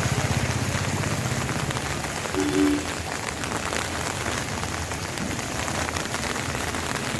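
Heavy rain falling, a steady even hiss, with a low rhythmic rumble during the first couple of seconds and a brief tone about two and a half seconds in.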